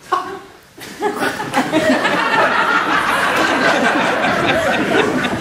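Audience laughing, the laughter swelling about a second in and carrying on as a continuous wash of many voices.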